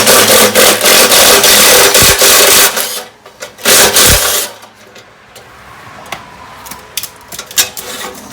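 Power driver spinning out an exhaust bolt: one long burst of nearly three seconds, then a short burst about a second later. Light metallic clicks and taps follow.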